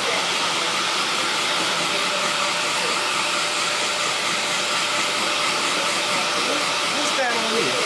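Handheld hair dryer running steadily, a continuous rush of blown air held close by.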